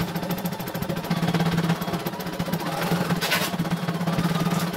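CNY E900 computerised embroidery machine stitching: a steady motor hum with a fast, even run of needle strokes. A short rustle about three seconds in.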